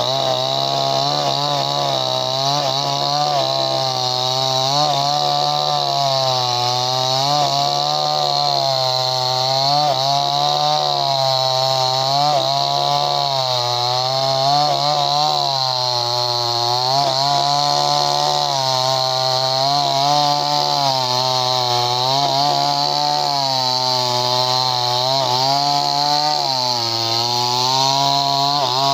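A 58cc two-stroke chainsaw running at high revs under load, its pitch sagging and recovering about every two seconds as the chain cuts into wood.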